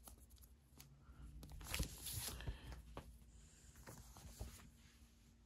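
Faint rustling, scraping and light taps from a comic book being handled, with the loudest scrape about two seconds in.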